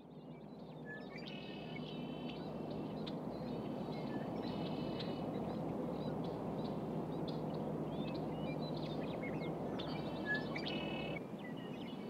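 Red-winged blackbirds singing: short buzzy trilled phrases several times over, above a steady low rushing background that drops a little near the end.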